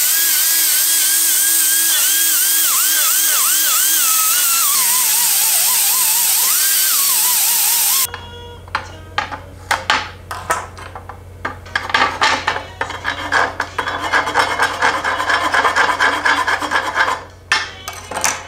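A right-angle pneumatic die grinder with a small sanding disc runs with a loud air hiss, its whine dipping again and again as it is pressed against a weld on an aluminium square tube. It cuts off about eight seconds in, and is followed by quick scraping strokes of a hand tool working the tube's edge, over a steady low hum.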